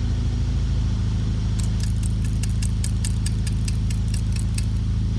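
BMW M62TU 4.4-litre V8 engine running steadily at idle. Over it, about a second and a half in, a quick series of sharp, light metallic clicks runs for about three seconds.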